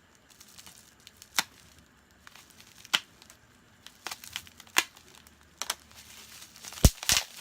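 Tape being torn off a bubble-wrap package and the plastic wrap crinkling as it is pulled open. It comes as a quiet rustle broken by sharp cracks every second or so, with two loud cracks close together near the end.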